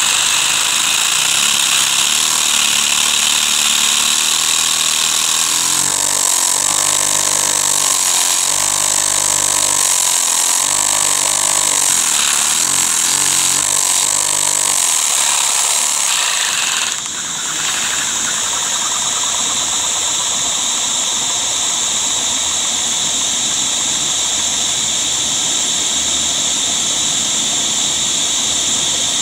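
Vacuum cleaner running with a steady high whine, its suction driving a Lego butterfly-valve vacuum engine. A low pulsing beat from the engine's plastic mechanism comes through from about six to fifteen seconds in, and the sound dips briefly a little past halfway.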